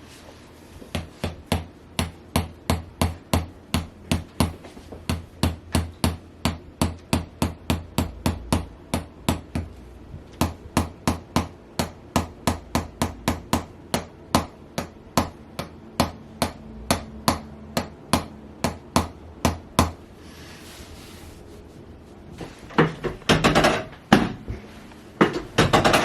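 Chiropractic activator adjusting instrument clicking in a long, even series of sharp clicks, about three a second, stopping about twenty seconds in. A few louder knocks follow near the end.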